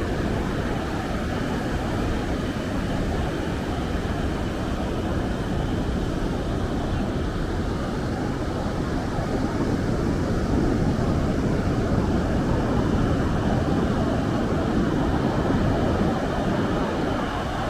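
Steady rushing noise of ocean surf, deep and even, growing a little louder about halfway through.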